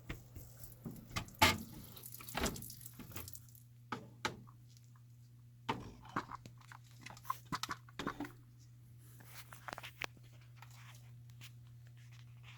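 Scattered clicks, scrapes and rattles of an access panel on a furnace and air-handler being handled and taken off to get at the evaporator coil, over a steady low hum.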